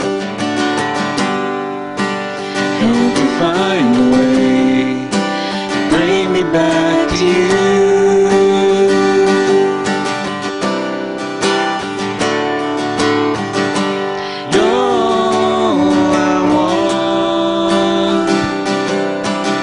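A man and a woman singing a slow Christian worship song to a strummed acoustic guitar.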